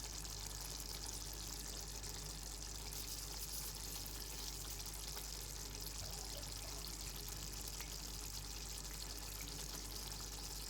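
Steady hiss of chicken curry simmering in a pan on the stove, with a faint low hum underneath.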